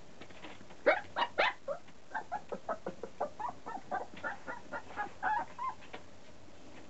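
Young puppy yipping and whimpering in a quick run of short high calls: a few loud ones about a second in, then softer ones about four a second, stopping near six seconds.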